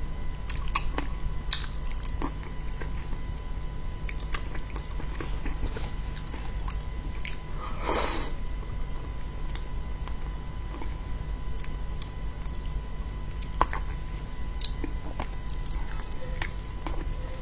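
Close-up eating sounds of braised fish pieces: wet chewing and small mouth clicks and smacks, with a louder slurp about eight seconds in. A steady low hum runs underneath.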